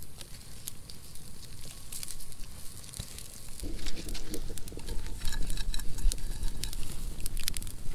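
Small fire of dry sagebrush and tumbleweed crackling, with many scattered sharp pops and snaps. A low rumble joins about halfway in.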